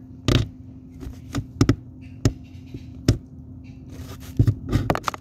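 Irregular sharp taps and knocks, about ten, with a few brief scrapes, close to the microphone on the box the phone is shut inside, over a faint steady hum.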